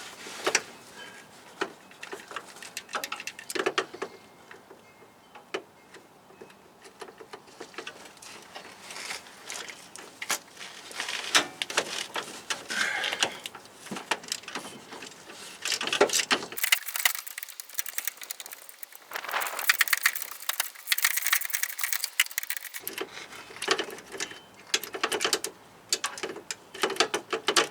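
Ratchet and 10 mm socket on swivel extensions clicking in repeated strokes, with small metal knocks, as a tight slave cylinder mounting bolt is worked loose.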